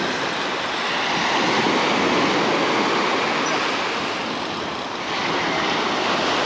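Small surf breaking and washing up a sandy beach, a steady rush of water that swells and eases as the waves come in.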